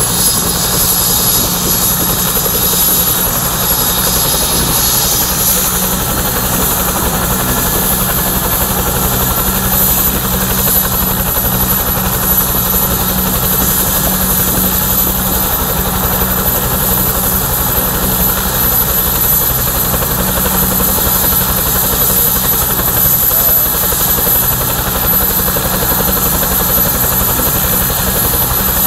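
Bell 222/230 helicopter running on the ground with its twin turboshaft engines and rotor turning: a steady high turbine whine over the low beat of the main rotor. The whine steps up in pitch about five seconds in.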